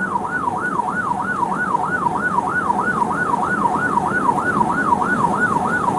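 Police car siren in yelp mode: a fast rising-and-falling wail, about four sweeps a second, held steadily over a low steady noise.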